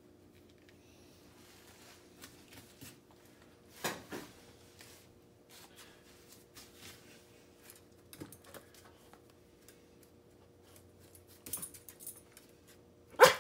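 A Yorkshire terrier gives one sharp, loud bark right at the end. Before it there is a faint steady hum, scattered light clicks as the dog shifts on the tile floor, and a short sharp sound about four seconds in.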